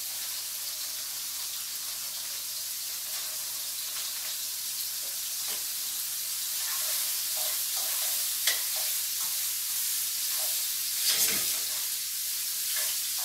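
Steady sizzle of food frying in hot oil in two pans: salmon fillets searing, and frozen riced cauliflower cooking down with mushrooms and onions. The sizzle grows a little louder partway through. In the second half, a few sharp clicks of metal tongs against the pan as the cauliflower is stirred.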